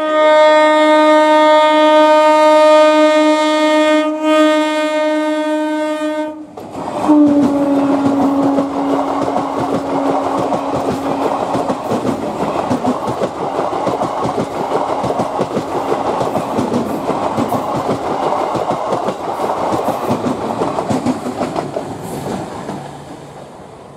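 Electric multiple unit (EMU) local train sounding a long, steady horn blast for about six seconds, then a second horn note whose pitch sags slightly as the train passes. Heavy wheel clatter over the rails follows and fades away near the end.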